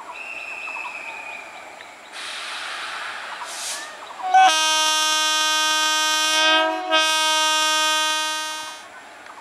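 Electric locomotive's air horn sounding two long, loud blasts with a short break between them, after a brief hiss of air.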